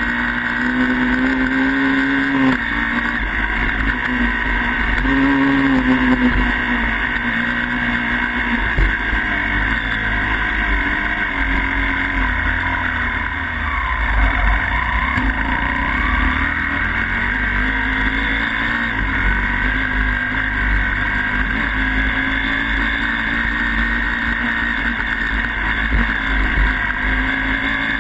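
Dirt bike engine running under way, its revs rising and falling as the throttle opens and closes, dipping briefly about halfway through. Wind buffets the microphone with a low rumble throughout.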